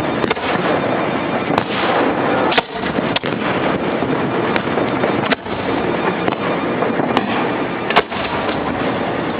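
Fireworks going off in a dense barrage: a continuous crackling roar with sharp bangs breaking through about six times, roughly a second or two apart.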